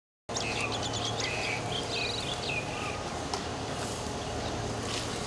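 Outdoor ambience: birds chirping and trilling over a steady low hum, starting abruptly about a quarter second in.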